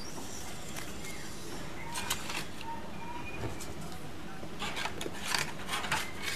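Light clicks and scrapes of plastic and paper as toy banknotes are handled in the plastic cash drawer of a toy cash register: a couple about two seconds in, then a quick cluster near the end, over a steady low hiss.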